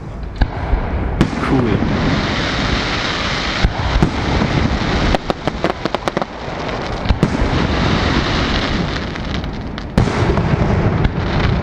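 Aerial fireworks bursting and banging over a continuous noisy background, with a quick run of sharp cracks about five to six seconds in and one loud bang near the end.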